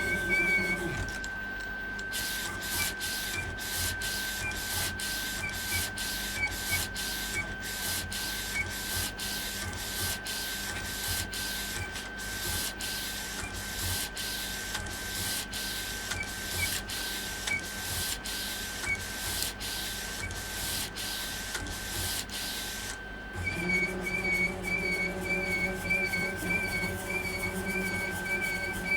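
Epson Stylus Pro 4880 wide-format inkjet printer printing: the print-head carriage shuttles back and forth in a quick, even rhythm of swishes over a steady high whine. Near the end the passes stop and a lower motor hum with a warbling high tone takes over.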